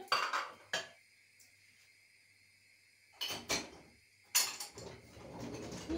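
Ceramic plates and bowls knocking and clattering as they are set into a dishwasher's racks, in a few separate knocks, then a busier run of clatter about halfway through.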